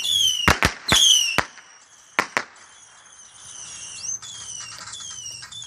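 Small whistling fireworks going off: a string of short whistles that fall in pitch, mixed with sharp pops and cracks that are loudest in the first second and a half, then a quieter run of whistles.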